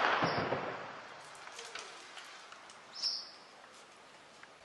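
The echoing tail of a loud blast, dying away over about a second and a half, then faint outdoor quiet with a short high chirp about three seconds in.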